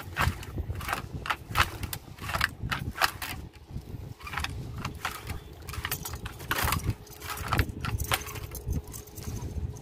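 Irregular metallic-sounding clinks and knocks, roughly one or two a second, over a low rumble.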